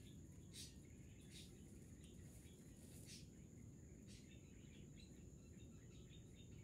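Near silence: faint outdoor background with a steady high-pitched tone, a few faint chirps and several soft, brief rustles.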